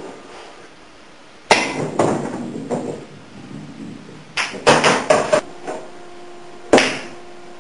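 Hard clacks of pool balls: cue tip striking and balls knocking against each other and the cushions. There are three knocks, then a quick run of five or six, then one loud single knock near the end.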